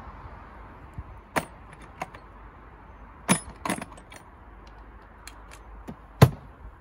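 Sharp clicks and clacks of hand tools being handled in a plastic power-tool case, about seven separate knocks with the loudest near the end.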